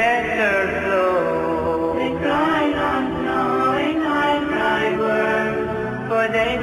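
Ilahija, an Islamic devotional song, sung a cappella: several voices in layered harmony over a held low note, with melody lines that rise and fall.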